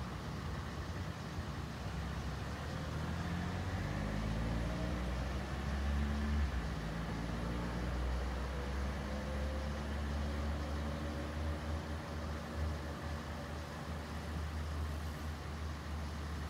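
An engine running over a steady low rumble, its pitch climbing slowly over several seconds.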